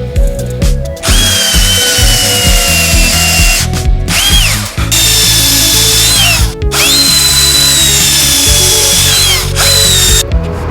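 A power tool's electric motor whines at high speed in three runs, about a second in, near the middle, and again until near the end. Its pitch sags slightly during each run, and it winds down and back up between runs. Background music plays underneath.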